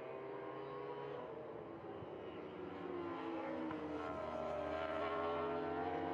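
Superbike racing engines at high revs as the bikes corner. The pitch dips and then climbs as they accelerate out.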